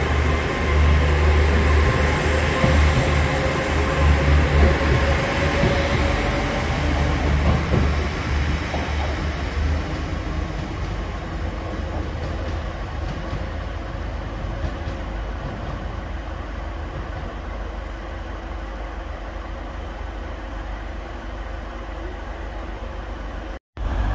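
TransPennine Express diesel train pulling away, its engine loud and working with a slowly rising note for about ten seconds, then dying away. A quieter steady engine hum of trains standing in the station remains, and the sound cuts off abruptly near the end.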